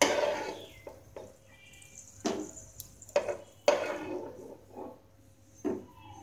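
Steel spoon scraping and knocking against a non-stick frying pan while scooping golden-fried cashews out of ghee, a series of sharp knocks and scrapes about a second apart.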